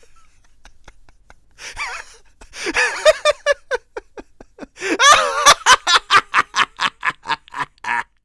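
A man's maniacal, deranged laughter: it starts with quiet breathy snickers and builds, about five seconds in, into a loud, fast run of short 'ha-ha-ha' bursts that stops near the end.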